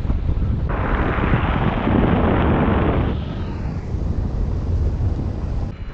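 Wind rushing over the microphone of a paraglider in flight, with a low rumble throughout. A louder gust of rushing noise comes about a second in and fades after about two seconds.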